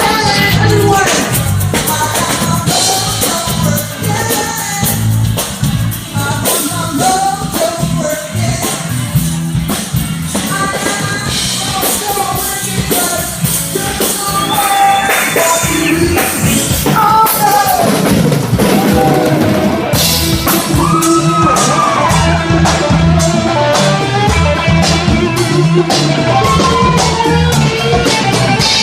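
Live blues band playing: a lead singer over drum kit, electric bass and guitar.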